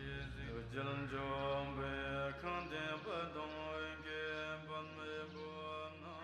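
Chant-like singing whose pitch glides and bends, over a steady low drone.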